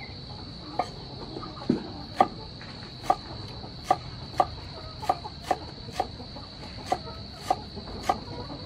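Cleaver chopping green onions on a wooden cutting board: sharp knocks, roughly one to two a second and unevenly spaced. A steady high-pitched buzz runs underneath.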